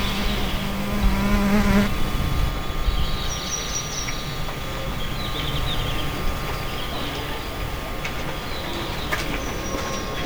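An insect, likely a fly, buzzing close by for about the first two seconds, wavering as it moves, then stopping. After that come scattered short high chirps over steady forest ambience.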